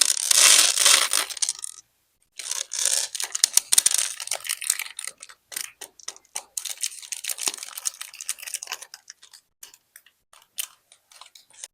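Small hard candies pouring and clattering, a dense patter of clicks. A short pour lasts under two seconds, then after a brief pause a longer one thins out to a few scattered ticks.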